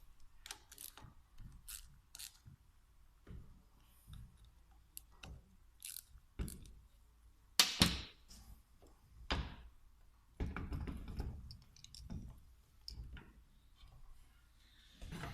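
Irregular clicks, clinks and knocks of tools and small metal parts being handled while a VE diesel injection pump is taken apart, the loudest knock about eight seconds in, with a short stretch of scraping a little later.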